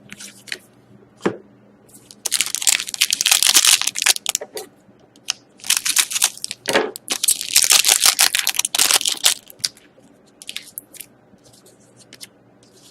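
A foil hockey card pack wrapper being torn open and crinkled in two long stretches, with light clicks and rustles of cards being handled between them.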